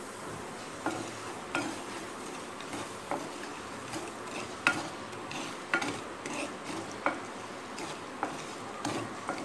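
Wooden spatula stirring lumps of jaggery in water in a non-stick pan as it heats to dissolve, knocking and scraping against the pan in irregular short knocks about once or twice a second over a steady faint hiss.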